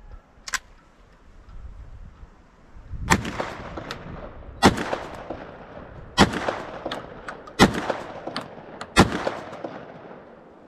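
FedArm FX4 semi-automatic shotgun firing five shots about a second and a half apart, each shot cycling the action and followed by a long echo. A light click comes about half a second in, before the first shot.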